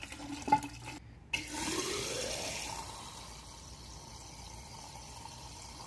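Isopropyl alcohol running from a small ball valve into a tall plastic graduated cylinder. After a brief break about a second in, the stream starts with a rising note over a second or so, then settles into a steady, quieter trickle.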